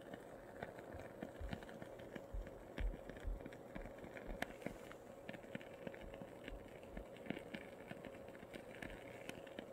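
Wooden-wick candle in a glass jar crackling as it burns: faint, irregular sharp pops, several a second, as the wick spits sparks.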